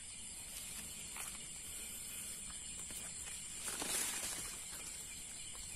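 Night insects chirring in a steady high-pitched drone, with faint footsteps on a dirt path and a brief rustle about four seconds in.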